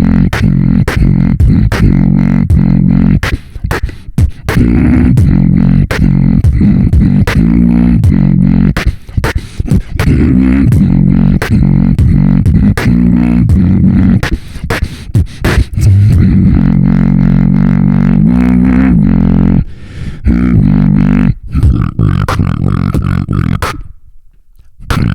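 Beatboxing: a loud, low-pitched vocal bass line with sharp clicking snare and hi-hat hits over it, broken by a few brief pauses.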